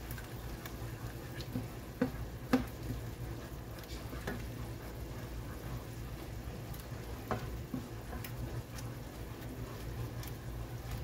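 Plastic spoon stirring and scraping a thick tomato-paste sauce with diced bell peppers in a nonstick frying pan, with a light sizzle and a few sharp knocks of the spoon against the pan, the loudest about two and two and a half seconds in. A steady low hum runs underneath.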